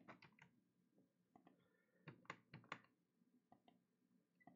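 Faint clicks of a computer mouse and keyboard, a few quick clicks in small clusters over near silence.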